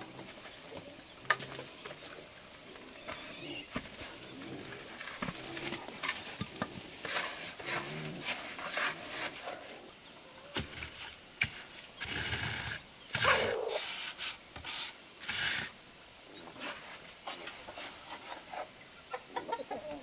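Steel hand trowel scraping and tapping cement mortar while hollow concrete blocks are laid, in short irregular scrapes and knocks, with chickens clucking now and then.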